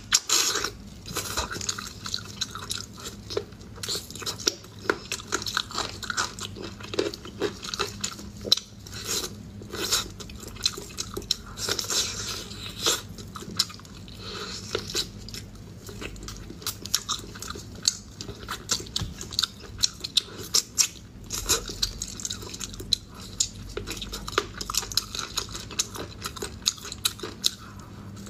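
Close-miked biting and chewing as a person gnaws meat off braised pork rib bones, with many sharp, irregular clicks and smacks several times a second.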